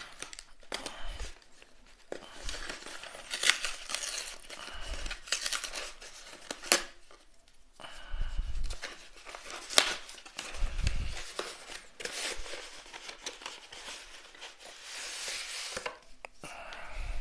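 A cardboard shipping mailer being torn open by hand: irregular ripping and crinkling of the cardboard, with a few sharp snaps.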